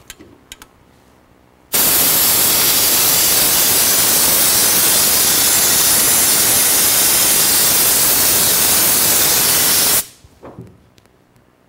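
Compressed-air siphon-cup spray gun spraying contact cement: a steady, loud hiss that starts abruptly about two seconds in and cuts off sharply about eight seconds later.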